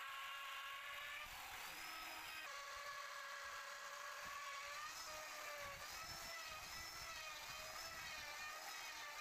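A steady high-pitched motor whine, like a small electric power tool running, wavering slightly in pitch and shifting abruptly a couple of seconds in.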